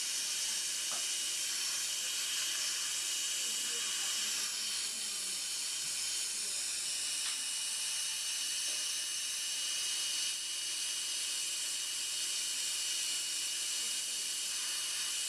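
Dental suction hissing steadily as it draws air from the patient's mouth during laser removal of gum tissue. A thin, high whistle runs through it and gets stronger about seven seconds in.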